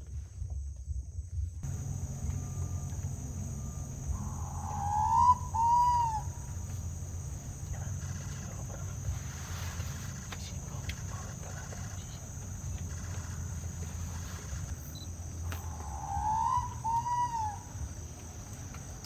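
A bird calls twice, about eleven seconds apart. Each call is two clear notes, a short rising one then an arched one, over a steady low rumble and a constant high hiss.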